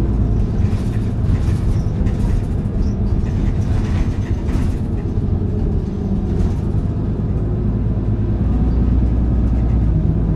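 Diesel engine of a KC-HU2PMCE Hino Blue Ribbon city bus running as the bus drives, a steady low drone with lighter rattling and road noise coming and going in the middle.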